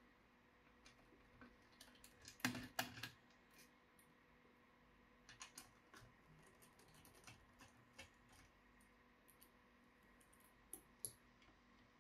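Scattered light clicks and taps over a quiet background, with a louder flurry of clicks about two and a half seconds in and a few more later.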